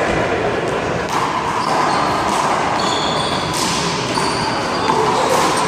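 Handball play: a rubber handball smacked by hand against the wall and bouncing on pavement, a few sharp smacks over steady background noise.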